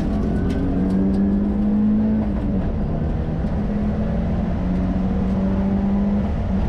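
Subaru Impreza Group N rally car's turbocharged flat-four engine under hard acceleration, heard from inside the cabin, with short breaks in the engine note about two and a half seconds in and again near the end as it changes up a gear. Tyre and road noise lie underneath.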